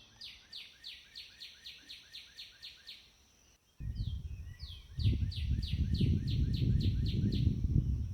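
A songbird singing a fast run of descending whistled notes, about five a second, repeated a second time about four seconds later. From about four seconds in, a loud low rumble, the loudest sound here, runs under the second song.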